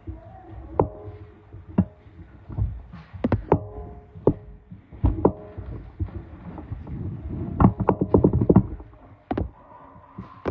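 Irregular knocks and thumps with a low rumble, a dozen or more sharp hits spread unevenly, thickest about five and eight seconds in.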